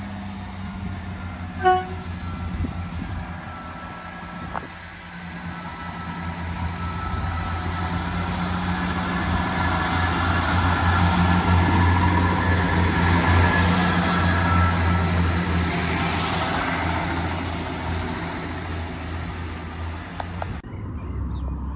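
Northern Class 158 diesel multiple unit approaching and passing with a steady diesel engine drone and rail noise that build to a peak as it goes by, then fade as it runs away. A short horn-like tone sounds about two seconds in, and the sound cuts off suddenly near the end.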